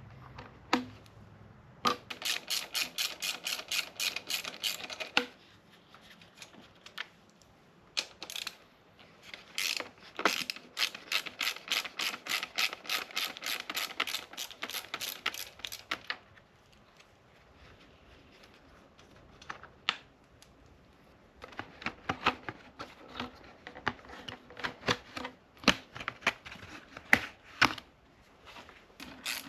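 Hand ratchet wrench clicking in quick runs as fasteners are turned on a 2002 Honda 400EX quad during teardown, with pauses and a few single clicks in between.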